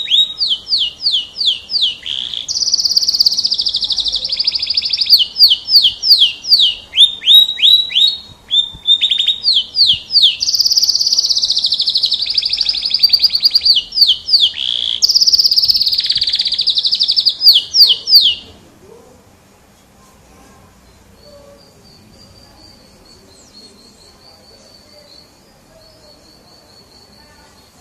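F1 domestic canary in full song: a long, loud run of rapid repeated downslurred notes alternating with sustained high trills, stopping about two-thirds of the way through. After that only faint high chirping remains.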